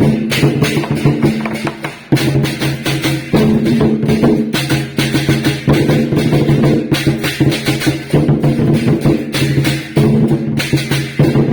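Loud music with sustained pitched notes over a busy rhythm of drum and wood-block-like percussion, breaking off briefly about two seconds in and again near ten seconds.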